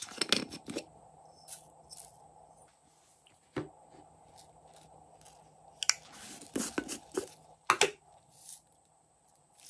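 Small plastic containers being handled and opened by hand: scattered plastic clicks, taps and rustles. They are busiest in the first second and again about six to eight seconds in.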